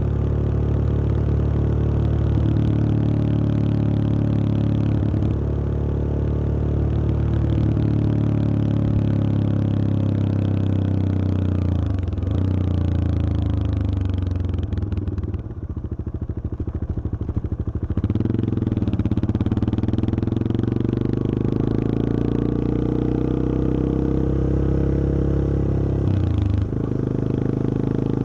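Yamaha XT225 Serow's air-cooled single-cylinder four-stroke engine running under way. Past the middle the engine note falls as the bike slows, runs low and quieter for a few seconds, then rises again as it pulls away, with a brief break near the end like a gear change.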